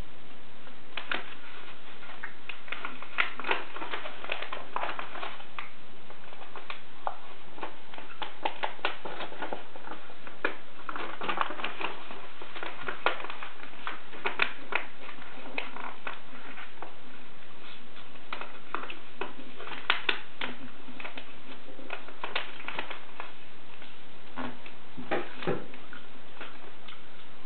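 A sheet of paper being folded by hand into an origami popper: irregular crinkling and rustling as it is creased, with scattered sharper crackles.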